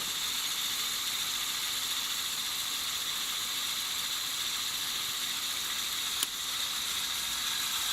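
LEGO Technic Bucket Wheel Excavator 42055's Power Functions motor driving its plastic gear train, a steady whirring rattle that is pretty loud, with one sharp click about six seconds in.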